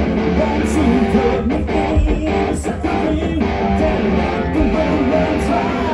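Live rock band playing an instrumental passage between sung lines: electric guitars over bass and drums, loud and dense, heard from the audience.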